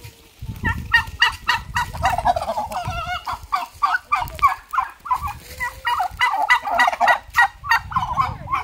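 Domestic turkeys gobbling: many quick calls overlapping in rapid succession, a flock calling together.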